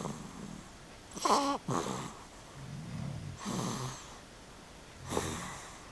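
Sleep snoring during REM sleep: a series of separate, uneven snores and breaths. A short, loud, higher-pitched sound comes about a second in, low rumbling snores follow, and there is a noisier breath later on.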